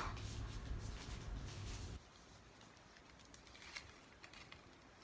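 Faint handling noise from a small cardboard gift box being turned and picked open: light rustling and small clicks, with a low rumble of handling for about the first two seconds, then quieter.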